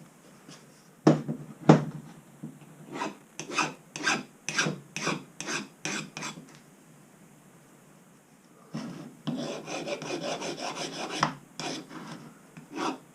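Hand file scraping back and forth over the vice's metal part, taking off burrs, in repeated quick strokes. Two sharp knocks come about a second in, then a run of strokes, a pause of about two seconds, and a second, denser run of strokes.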